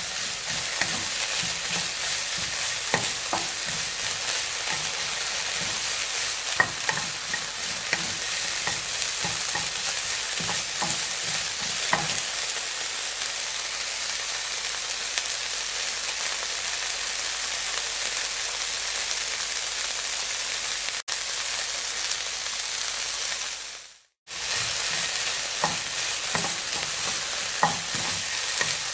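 Meat frying in hot oil: a steady sizzle with scattered crackles and pops of spitting fat. The sizzle drops out for a moment near the end, then resumes.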